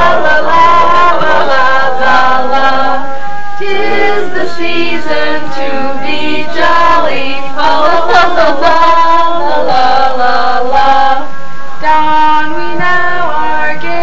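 Music with singing voices, continuing without a break.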